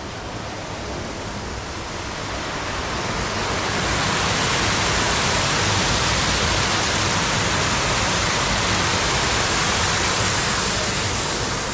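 Stream water pouring over a small stone weir: a steady rushing that grows louder over the first few seconds, then holds even.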